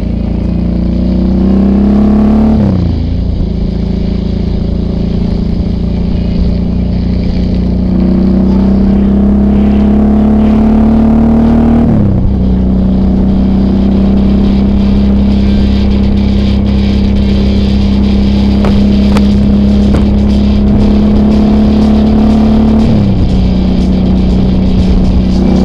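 Suzuki V-Strom DL650's V-twin engine under way on the road. Its note climbs steadily as the bike accelerates, dropping sharply at gear changes about two and a half seconds and twelve seconds in. It then holds a steady cruising note, with a slight drop near the end.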